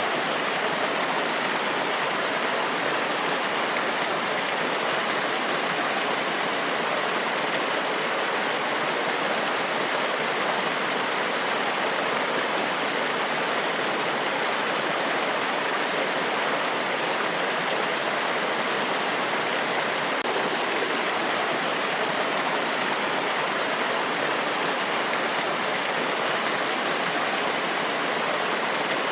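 Forest waterfall: a steady, even rush of falling water splashing over rocks.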